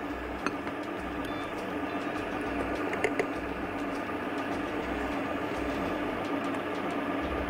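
Electric stand mixer running steadily at low speed, its beater churning butter-sugar-egg cookie dough. The motor keeps a constant hum.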